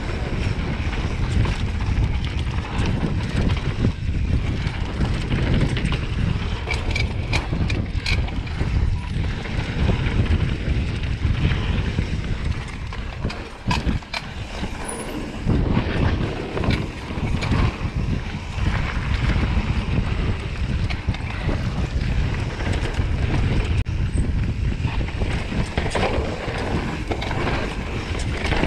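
Wind buffeting the microphone and knobby tyres rolling fast over a dirt trail as a mountain bike descends, with scattered sharp clicks and knocks from the bike going over bumps.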